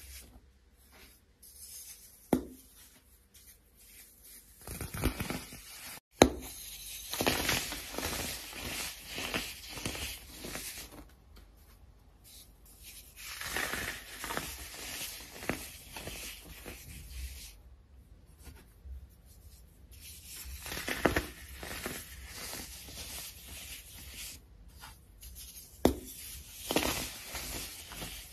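Dry, powdery soap being squeezed and crumbled between the hands: gritty crunching and crackling in repeated spells with short quiet gaps, and a few sharp snaps as pieces break.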